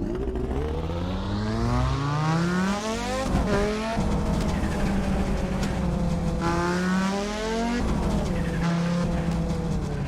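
Audi Sport quattro S1's turbocharged five-cylinder engine pulling hard. The revs climb, then fall sharply at gear changes about three and a half seconds and eight seconds in, and hold steadier in between.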